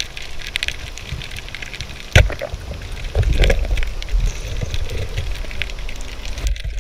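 Underwater sound of a spearfishing dive: a low rumble of moving water with scattered sharp clicks, and one loud crack about two seconds in as the speargun is fired at a grouper.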